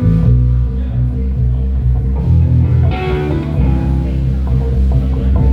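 Live band playing an instrumental passage: a guitar line over a bass guitar and drums.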